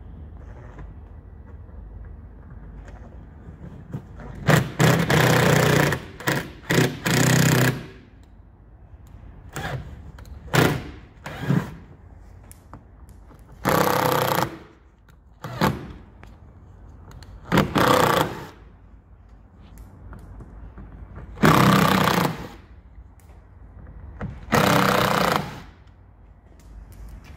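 Cordless drill-driver with a T25 Torx bit running in repeated short bursts of a second or two, each run backing out one of the screws that hold a plastic wheel-arch liner.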